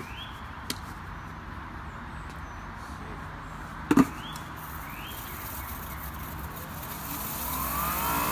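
Water spray from a Greenworks Pro 2300 electric pressure washer hitting a patio, a steady hiss. There is a sharp knock about four seconds in, and the sound grows louder near the end.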